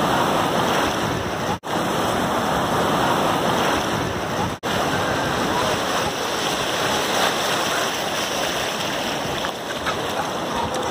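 Shallow surf washing in and out over sand: a steady, loud rush of breaking waves and foam, cutting out briefly twice in the first few seconds.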